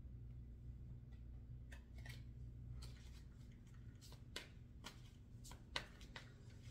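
Faint, scattered clicks and soft snaps of tarot cards being handled, over a low steady hum.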